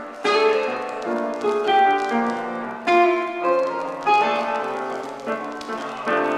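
Background piano music: chords struck about every second or so and left to fade.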